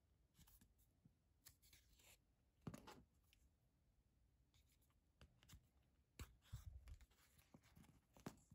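Faint, irregular rustles and scrapes of leather being hand-stitched: needle and thread drawn through the stitching holes, with the leather strip handled between pulls.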